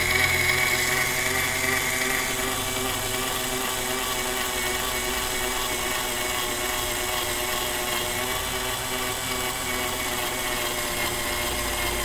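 Cordless drill running steadily, spinning a cutter that turns the neck of a 7.62x39 NATO brass case locked in a Hornady case trimmer, fed slowly up and back along the neck. A higher whine over the motor fades out after about two seconds.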